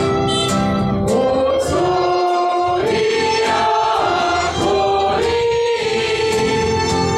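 Congregation singing a Konkani litany hymn together, slow and sustained, with long held notes.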